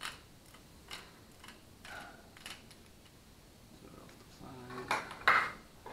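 Click-type torque wrench handle being turned, giving a few scattered light clicks, then a louder sharp knock near the end.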